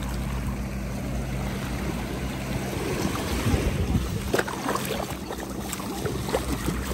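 Shallow sea water washing and splashing over a steady low hum. From about three seconds in come quick, sharp splashes of feet running through ankle-deep water.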